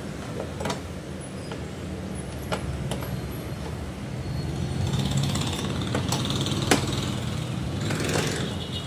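Steady low engine hum with scattered clicks and light knocks of a screwdriver working screws in a scooter's plastic under-seat compartment, about half a dozen of them, the sharpest about three-quarters of the way through.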